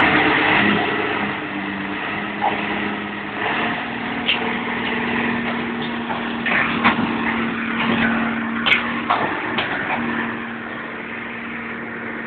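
Engine of a heavy demolition machine running steadily, its pitch stepping up a little about three and a half seconds in, with scattered sharp knocks in the middle stretch.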